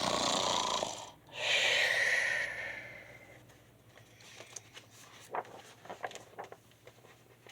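A person imitating a bear's snore: a noisy in-breath, then a longer out-breath that fades away. Soft clicks and rustles follow.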